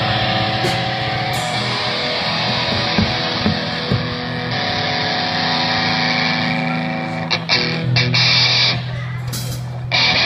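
Loud rock music led by distorted electric guitar holding sustained chords, which break into short chopped stabs in the last few seconds.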